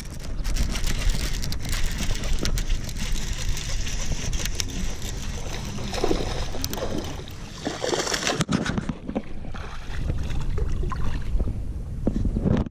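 Rushing noise with a steady low rumble, scattered knocks and a loud burst of splashing around two-thirds of the way in, as a hooked bass is played on a bent casting rod and brought up to the surface beside the boat.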